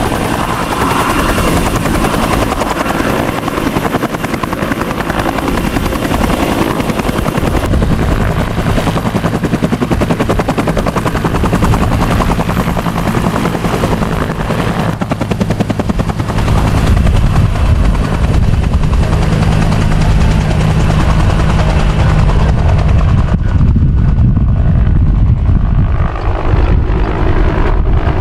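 Bell UH-1H Huey helicopter, a single turboshaft engine driving a two-blade main rotor, running loud and steady while it hovers low over water, drafting through its snorkel hose with rotor wash spraying the surface. About halfway through the low rotor beat grows heavier as it climbs away.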